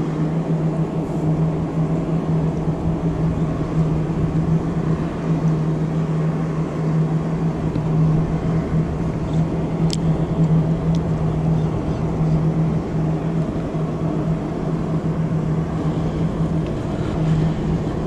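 Small 15 hp outboard motor idling with a steady, even hum. A single sharp click about ten seconds in.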